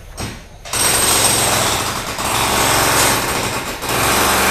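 Building-site machine starting abruptly under a second in and running loud and steady with a fast, hard rattle, like a jackhammer.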